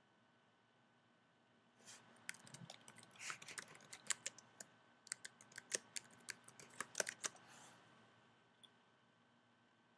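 Faint typing on a computer keyboard: a quick, uneven run of key clicks starting about two seconds in and stopping a couple of seconds before the end, as a username and password are entered at a login screen.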